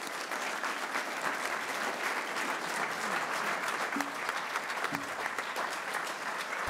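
Many people applauding together, a steady run of clapping hands.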